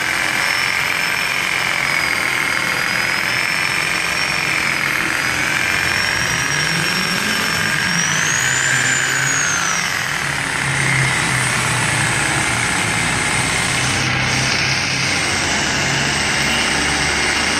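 Electric machine polisher running steadily against car paint, its motor whine wavering in pitch as the pad is worked across the panel, with a brief rise in pitch about eight or nine seconds in.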